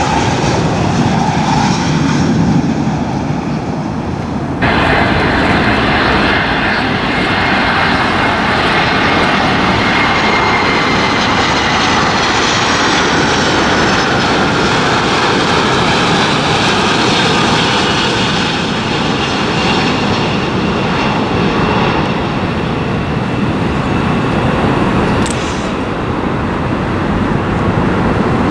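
Jet airliners on final approach: first an American Airlines MD-80's rear-mounted engines, then, after an abrupt cut about four and a half seconds in, a Delta Boeing 757's engines with a whine slowly falling in pitch as it passes.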